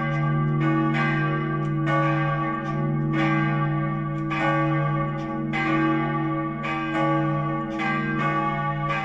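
Two church bells, tuned to C-sharp and G and cast in 1515 and 1650, swinging and ringing together. Their strokes fall out of step, roughly one every half second, over a continuous low hum.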